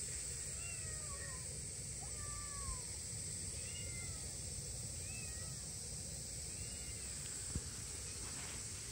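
A two-month-old kitten meowing over and over: short, high, rising-and-falling calls about once a second, stopping about seven seconds in. These are the anxious calls of a kitten left behind by its mother.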